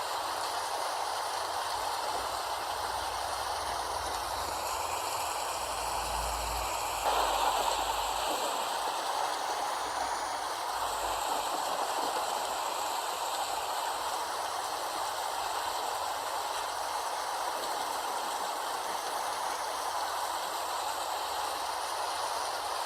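Steady, even rain with a dense hiss of falling drops, briefly louder for about a second some seven seconds in.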